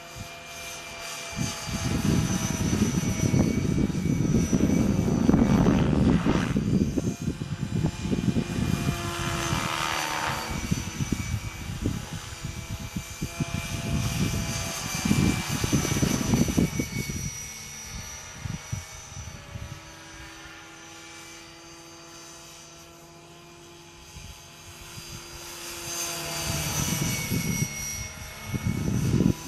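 Electric Gaui Hurricane 425 RC helicopter flying with 465-size rotor blades. The rotor noise comes with a steady high motor and gear whine, growing louder and fainter as it passes. It is quietest a little after the middle and swells again near the end.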